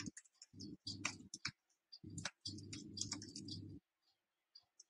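Faint, irregular tapping of computer keyboard keys as login details, a username and password, are typed in; the typing thins out near the end.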